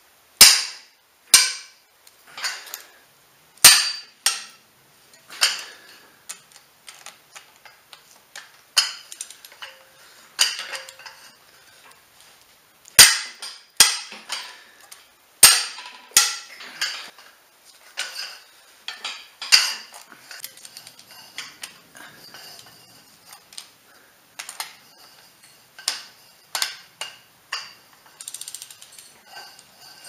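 Ratchet wrench clicking and metal snapping as the cylinder head bolts of a Ford Duratec 2.3 four-cylinder engine are loosened: irregular sharp snaps with lighter ticks between them.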